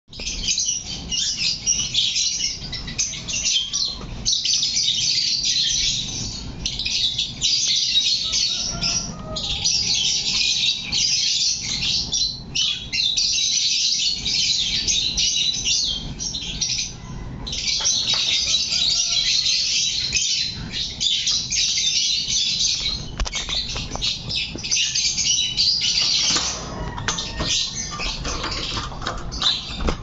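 Violet Fischer's lovebird chattering: rapid high-pitched chirps and squeaks in long bouts, broken by brief pauses.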